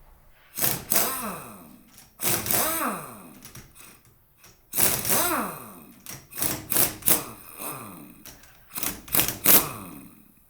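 A power tool run in short bursts with a rattling, hammering start, its whine falling in pitch as it winds down after each burst; several bursts come in quick succession near the middle and end. It is most likely undoing the bolts of a Sanden A/C compressor's cover.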